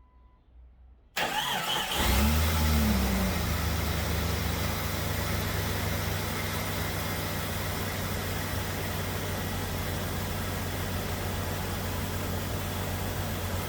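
2001 Jeep Cherokee XJ's 4.0-litre straight-six cranked by the starter about a second in. It catches and flares up briefly, then settles to a steady idle on its freshly replaced spark plugs: the test start after the plug change.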